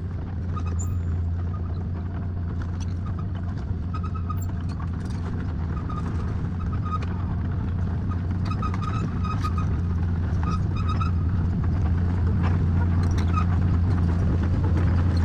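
Heavy construction machine's engine running steadily with a deep drone, growing gradually louder. Short high chirps sound now and then over it.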